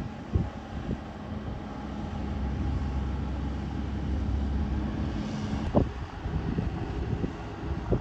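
Tractors working a grass-silage clamp: a low, steady engine drone that cuts off sharply about six seconds in, with wind buffeting the microphone in gusts.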